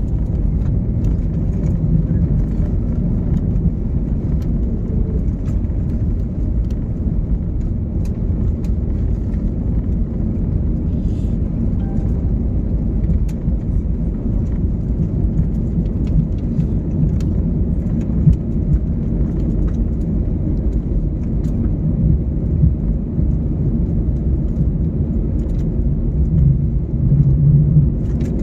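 Steady low rumble of an airliner heard from inside the cabin, with scattered faint ticks.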